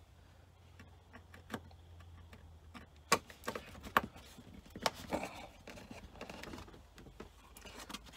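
Scattered clicks and taps with some scraping as a screwdriver works out the two screws holding a 12-volt spotlight fitting and the fitting is handled.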